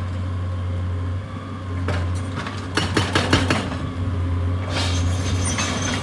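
A steady low machine hum, with a few clinks and knocks about halfway through.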